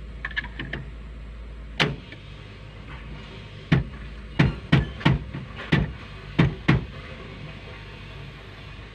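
Foton FR150-7 crawler excavator's diesel engine running steadily, with a series of sharp knocks from the bucket and arm working in the mud: one about two seconds in, then six more in quick, irregular succession over the next three seconds.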